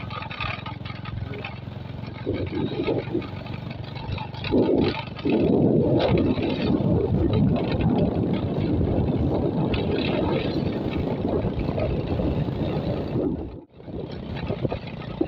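Small motorcycle being ridden on a gravel road: the engine runs under the noise of tyres and rushing air. The sound grows louder about five seconds in and drops out briefly near the end.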